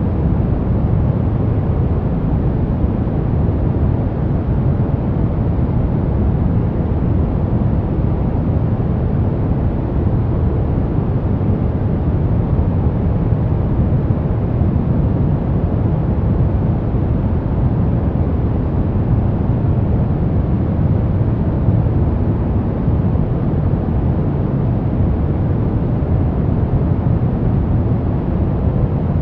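Steady, deep white-noise track for baby sleep: an even rushing noise weighted toward the low end, with no changes, tones or events.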